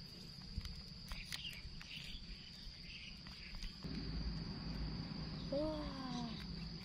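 Insects, likely crickets, trill steadily on one high tone, with a few soft clicks in the first few seconds. Near the end comes a short voice-like call that falls in pitch.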